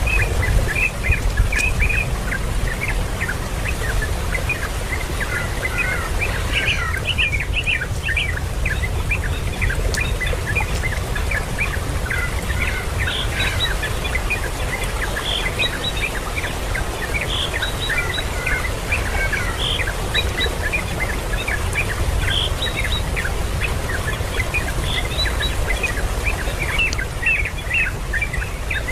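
Small birds chirping: many short, high, overlapping calls that run on without a break, over a steady low rumble.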